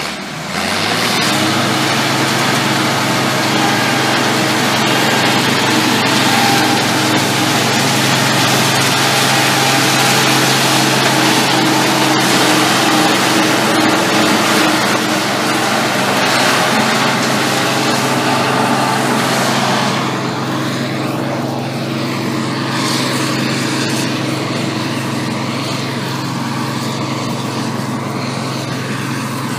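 Heavy farm machinery running steadily at corn harvest, a constant low engine hum under a dense mechanical hiss that thins out about twenty seconds in.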